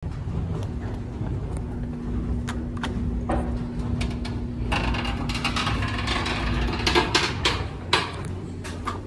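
Footsteps and small knocks on a tiled station floor over a low rumble and a steady hum, then the Thyssen hydraulic elevator's doors sliding open from about five to seven seconds in, with footfalls stepping into the car.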